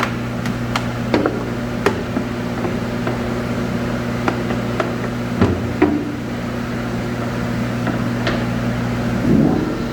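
Steady low machine hum with scattered sharp clicks and knocks.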